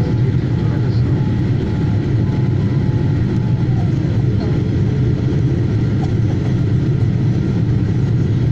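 Steady low rumble of jet engines and rushing airflow heard inside the cabin of a Boeing 787 Dreamliner in flight.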